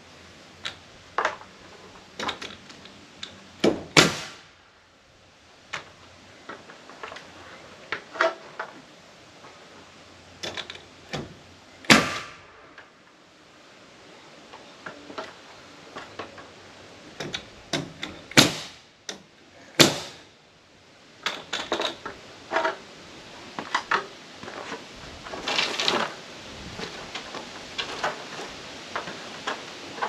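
Pneumatic nail gun firing into oak boards: four loud sharp shots, each with a short trailing hiss, spread among many lighter clicks and knocks from handling the tool and boards.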